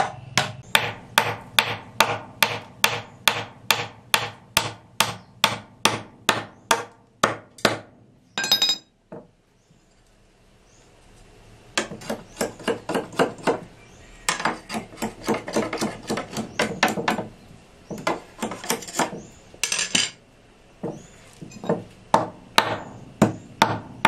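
Hammer and machete blows on a wooden stick braced against a wooden bench. There is a steady run of sharp knocks, about two and a half a second, then a pause of a few seconds and further, more irregular runs of knocks.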